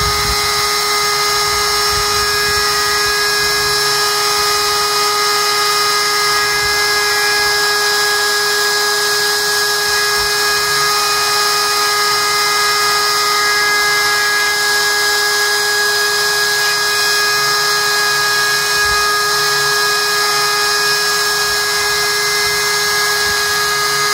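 DeWalt compact router spinning at a steady high whine on a chain-driven vertical CNC sled, carving into plywood.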